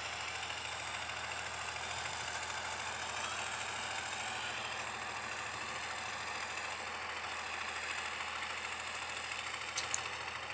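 Diesel engine of a Liebherr truck-mounted crane running steadily, with two short clicks near the end.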